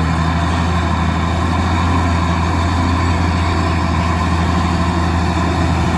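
Heavy truck engine idling steadily, a low even hum that cuts in suddenly as an added sound effect.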